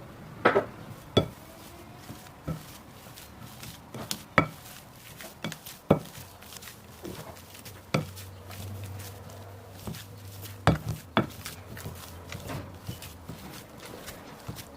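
Kitchen handling sounds: scattered sharp knocks and clinks of utensils against dishes, some ringing briefly, the loudest near the start and just before eleven seconds in. A low hum comes in for a couple of seconds in the middle.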